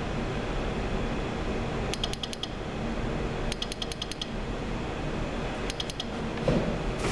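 Hydreon RG-11 optical rain sensor clicking out its drop-detection pulses in three quick bursts of rapid ticks, set off by a fingertip touching its dome, over a steady low hum.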